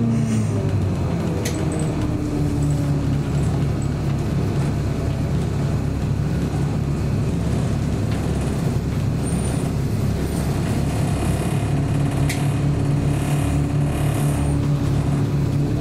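Scania L94UB city bus's diesel engine running with a steady low drone, heard from inside the cabin. Two sharp clicks cut through it, about a second and a half in and again near the end.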